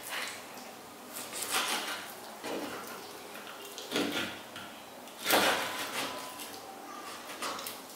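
Kitchen knife cutting up a plucked coot on a wooden cutting board: a string of short scraping and knocking sounds of the blade through flesh and against the board, the loudest a little past the middle.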